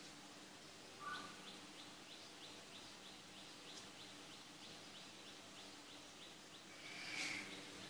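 Sewing machine stitching slowly, a faint even ticking of about three stitches a second over a low steady hum. A short chirp comes about a second in, and a louder one near the end.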